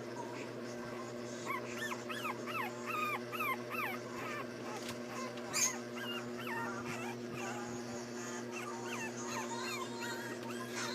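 Three-week-old puppies whimpering and squeaking: many short, high, bending cries, thickest in the first few seconds and then more scattered. A steady low hum runs underneath, and there is one sharp click about halfway through.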